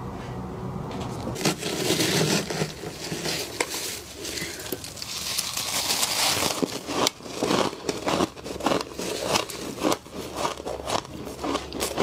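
Thick freezer frost crunching and crackling as gloved hands scrape it loose, scoop it up and squeeze it, with falling crystals pattering. From about seven seconds in come quick repeated crunches, two or three a second. A low hum is heard in the first second before the handling starts.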